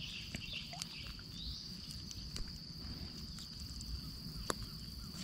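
Steady high-pitched insect drone, faint, with a few soft clicks as a small fish is worked out of a fine gill net by hand.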